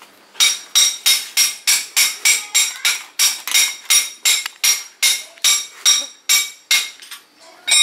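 Steady hammer blows on metal, about three a second, each ringing briefly; they stop about seven seconds in, with one more strike near the end.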